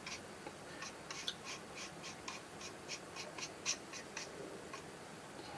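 Small paintbrush working ink onto the side of a plastic model boxcar: faint, quick scratchy strokes at about three a second, stopping about a second before the end.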